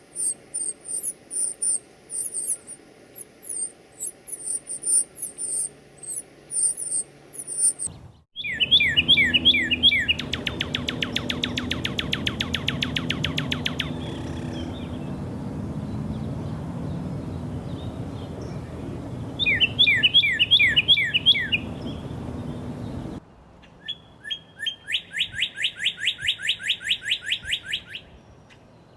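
Northern cardinal songs: series of loud, clear down-slurred whistles, each run breaking into a fast trill, cutting in abruptly about eight seconds in and again near the end. Before them, high thin chirping repeats quickly.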